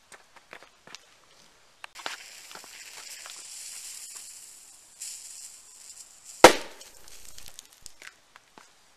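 Firecracker fuse hissing for about four seconds, then a single loud bang as the firecracker goes off inside a rotten watermelon and bursts it open.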